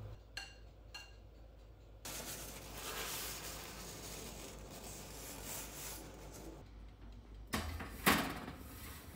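A metal spoon clinks twice, ringing briefly, as batter is scraped into an aluminium cake tin. A paper towel then rubs around the tin's side for several seconds. Near the end come two loud knocks as the tin is set on the metal oven rack.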